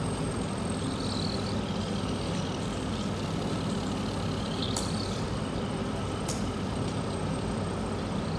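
Steady low background rumble and hum of room noise, with a faint high steady tone above it and two light clicks, about five and six and a half seconds in.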